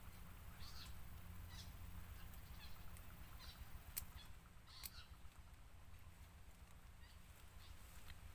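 Faint outdoor quiet with scattered short, high bird calls every second or so, a couple of sharp clicks about four and five seconds in, and a low rumble underneath.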